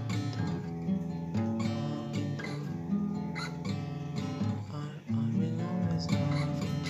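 Acoustic guitar strummed in chords through a song, with the strums coming in a steady rhythm. The playing drops out briefly about five seconds in, then comes back fuller.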